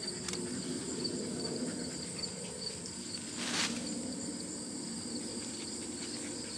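Insects chirring steadily in a high, faintly pulsing drone, with one short rustle a little past halfway through.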